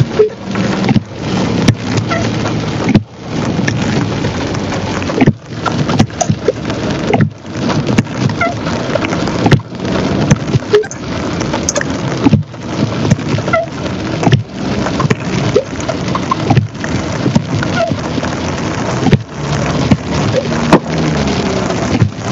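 Rain pattering on a car's roof and windscreen, heard from inside the car as a dense hiss with many sharp clicks, broken by several brief dropouts.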